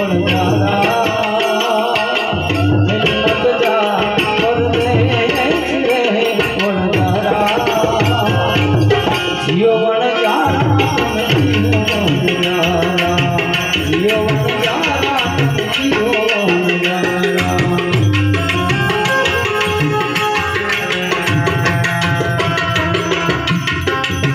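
Gujarati santvani devotional folk music: tabla drumming in a steady rhythm under a wavering melody line.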